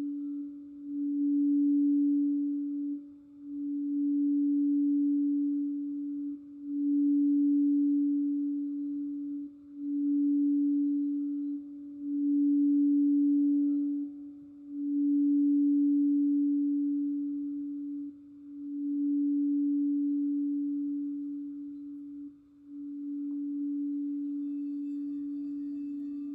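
Crystal singing bowl sounding one steady low tone that swells and dips about every two to three seconds. Faint higher bowl tones join near the end.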